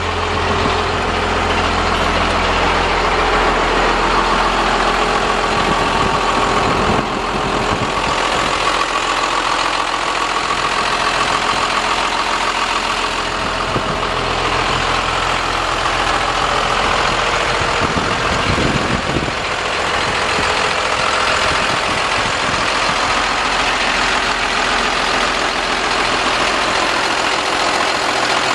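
1996 Ford F800 dump truck's engine idling steadily.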